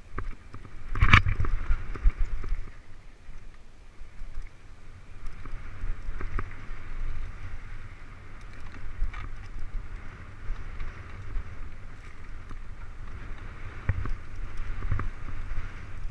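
Mountain bike ridden over a rough dirt singletrack, heard from a camera on the rider: a steady rumble of wind and trail noise with the bike rattling over the ground, and a loud knock about a second in and another toward the end.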